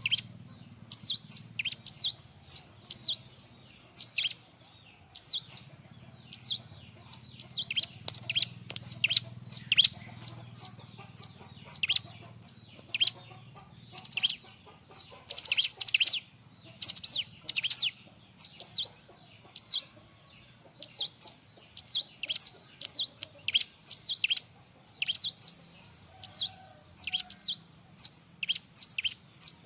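Bar-winged prinia (ciblek) calling busily: a long string of sharp, high chirps at about two a second, with a louder, denser flurry of calls about halfway through.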